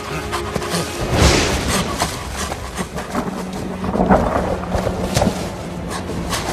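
Film score music, with a loud low crash about a second in and several sharp hits later on.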